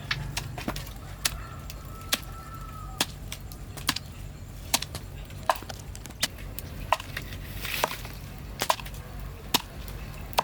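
Steady series of sharp chopping strikes on wood, a little more than one a second, over a low steady hum.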